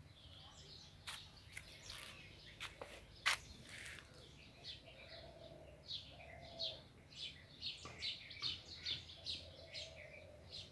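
Birds chirping: many short, high chirps repeating, busiest in the second half. Several sharp clicks in the first few seconds, the loudest about three seconds in.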